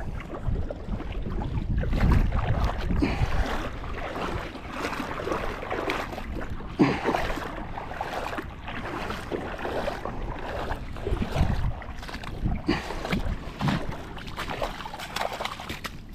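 Irregular splashing and sloshing of shallow river water, with wind rumbling on the microphone for the first few seconds.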